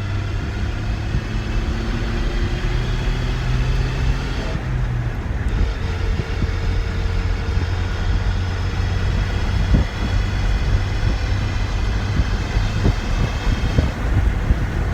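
Cab noise of a 2009 Ford Ranger under way with its rear window out: the engine note rises as it pulls in third gear, then changes at a gear shift about five seconds in, over steady road rumble. A faint steady whine runs through it, which the owner suspects comes from the rear differential's input bearing.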